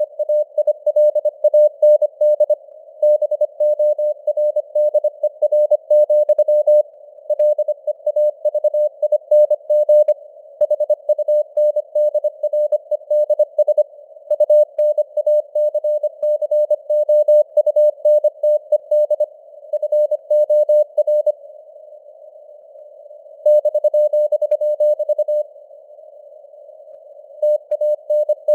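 Morse code sent at 25 words per minute: a single steady beep tone keyed rapidly in dots and dashes over a band of simulated radio hiss, with the signal fading up and down (QSB). Twice near the end the keying stops for about two seconds and only the hiss is left.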